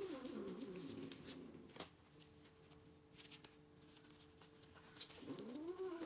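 Ginger domestic cat giving two long meows, one at the start and another about five seconds in, each rising and then falling in pitch.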